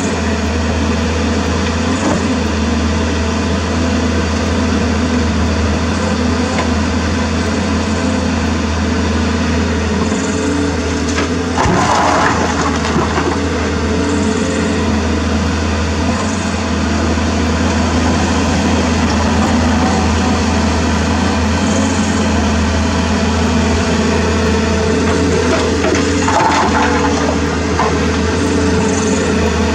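CAT 320D hydraulic excavator's diesel engine running steadily under load as it digs and loads a dump truck, with a sharp knock and a clatter of dirt and rock about twelve seconds in and another clatter near the end.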